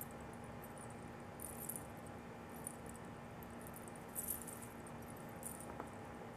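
Faint, short clinks and rustles of a metal wristwatch bracelet and a hand brushing the recording device, a few times, loudest about four seconds in, over a steady low electrical hum.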